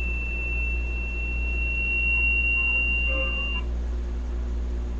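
A single high-pitched electronic beep tone held steady, cutting off suddenly about three and a half seconds in, over a low steady hum.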